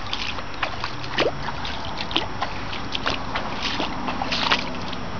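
Water trickling and splashing into a pond, a steady wash with many small irregular splashes.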